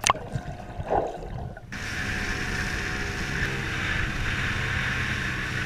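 Underwater splashing and bubbling for the first second or so, then cutting suddenly to a motorboat under way: steady engine noise with wind and water rushing past the hull.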